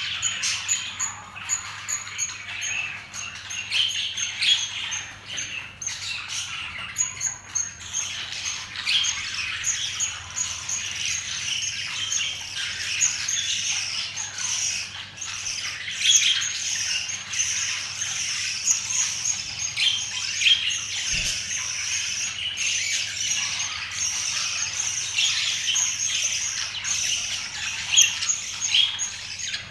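Budgerigars chattering: a continuous run of short, high chirps and squawks.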